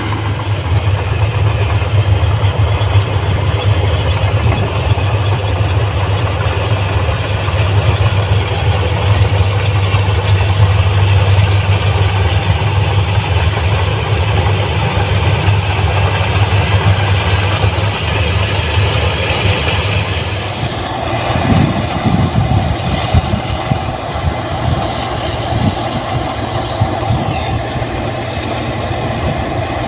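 Rice combine harvester engine running steadily with a strong low hum; about two-thirds of the way through the sound turns rougher and uneven.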